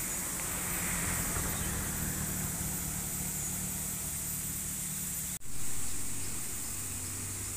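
Road traffic: a dump truck's diesel engine runs with a steady low hum as motorbikes and a car pass. About five seconds in, the sound cuts out for an instant, then comes back with a brief swell of passing traffic.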